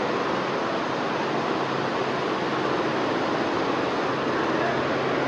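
Many multi-head computerized embroidery machines running together on a factory floor: a loud, steady, dense mechanical din of fast needle strokes with a faint underlying hum.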